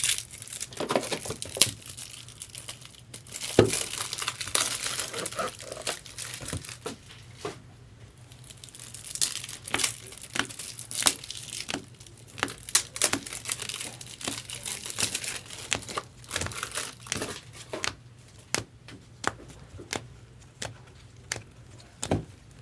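Trading cards in plastic penny sleeves and rigid plastic top loaders being handled and sorted: crinkly rustling of the sleeves and many sharp plastic clicks and taps as cards are shuffled and stacked, busiest a few seconds in and again around ten and fifteen seconds.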